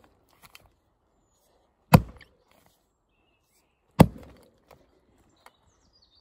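Tuatahi axe chopping into a fallen log: two solid blows about two seconds apart, each a sharp knock that dies away quickly.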